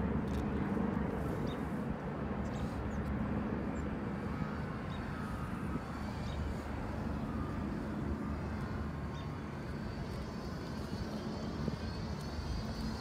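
Steady low rumble of distant engine noise, with faint whining tones that sweep slowly in pitch above it.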